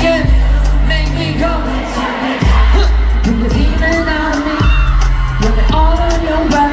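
Live pop/hip-hop music played loud over a concert PA, with long deep bass notes that cut out around two seconds in and return, a sung melody line, and sharp percussion hits, with crowd voices mixed in.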